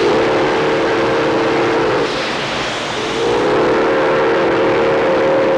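Steam locomotive whistle on Nickel Plate Road no. 765, a 2-8-4 Berkshire, blowing two long blasts with a short break between them, over a steady hiss of escaping steam.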